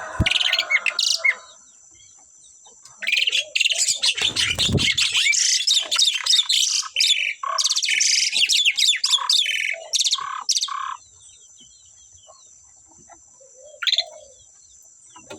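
Asian pied starlings singing: a brief burst of song at the start, then a long run of rapid, varied chattering and whistled notes from about three to eleven seconds in, and one short call near the end.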